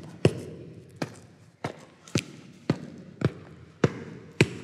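Punches landing on padded focus mitts: about eight sharp smacks, a little over half a second apart, each with a short echo.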